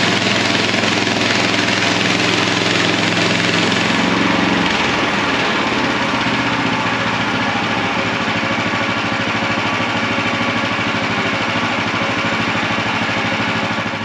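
Gasoline engine of a MechMaxx SM-26 bandsaw mill running under load as the band blade cuts through a log, with a loud, steady hiss of sawing over the engine; the engine note changes about four and a half seconds in. The engine RPMs are set too low to fully engage the clutch, so the blade bogs and stops in the cut.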